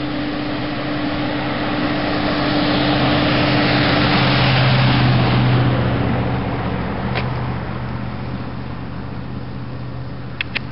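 A motor vehicle running with a steady hum, its noise swelling for a few seconds in the middle and then easing off. Near the end a quick run of short, high chirps starts.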